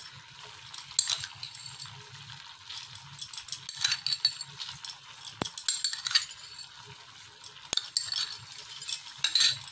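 Metal spoon scraping and clinking against a glass bowl as sugar is scooped and poured into a pan of simmering mango curry, with light clinks every second or two and two sharp ticks in the second half.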